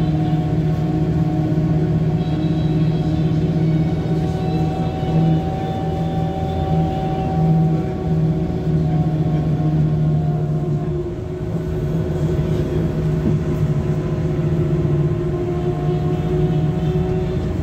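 Mercedes-Benz O405N2 city bus under way, heard from inside the cabin: a steady engine and drivetrain hum whose tones slowly rise and fall in pitch as the bus changes speed, easing off briefly about two-thirds of the way through.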